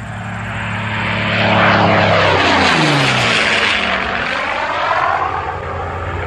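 A propeller airplane flying past: the engine grows louder, its pitch drops as it passes about two to three seconds in, then it carries on slightly quieter.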